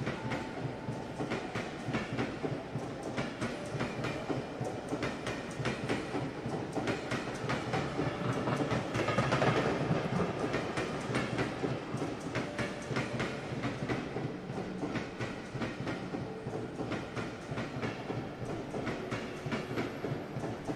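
Suburban electric train running, its wheels clattering over the rail joints in a steady rattle that swells louder about halfway through.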